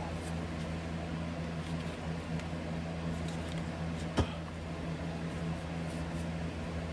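A steady low mechanical hum throughout, with faint ticks and one sharp metallic click about four seconds in, from hand tools working the bolts of a truck transmission's PTO cover plate.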